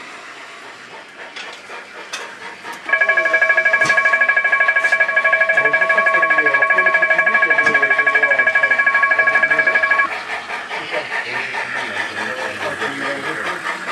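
Model level crossing's electronic warning ringer sounding, a loud rapid pulsing ring that starts about three seconds in and cuts off about ten seconds in. A model steam locomotive's chuffing with hiss follows as it runs over the crossing.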